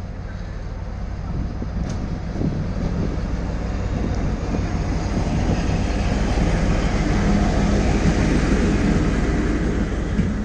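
A 2M62U diesel locomotive's two-stroke diesel engine runs with a steady low hum as it passes close by. Its diesel-train coaches then roll past with wheel-and-rail noise that grows louder over the first few seconds.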